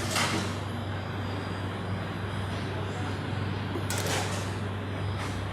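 Busy street-side noodle-shop ambience: a steady low hum under a general noisy din, with a short sharp clatter at the start and another about four seconds in.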